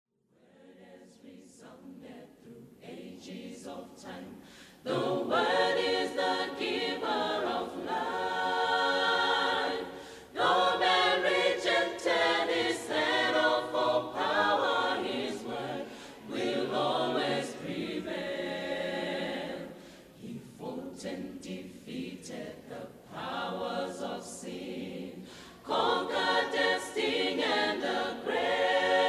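A choir singing a cappella in phrases with short breaks; it starts quietly and becomes much louder about five seconds in.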